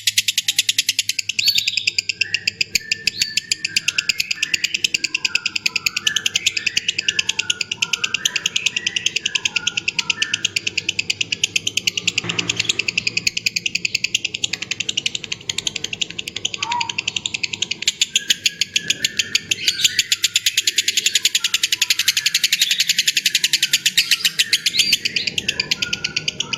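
Birds chirping with a fast, steady trill above them, over soft background music.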